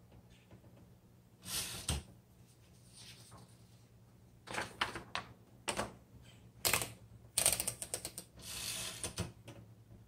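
Late-1950s Underwood Leader manual typewriter being loaded with paper: a swish of the sheet sliding in, sharp clacks of the platen and carriage mechanism, and a quick run of ratchet clicks as the platen knob rolls the sheet through, followed by a second paper swish near the end.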